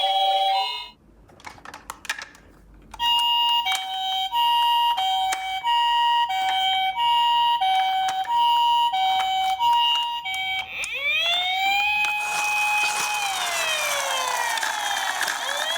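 A few faint clicks, then an ambulance siren. It starts as a two-tone hi-lo sounding for about eight seconds. From about eleven seconds in, overlapping wailing sirens rise, hold and fall over a rushing hiss.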